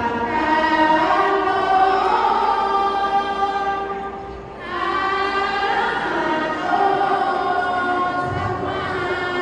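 Women's group chanting sarapanya, the melodic Isan Buddhist devotional recitation, together in long held, gliding notes, with a brief pause for breath about four seconds in.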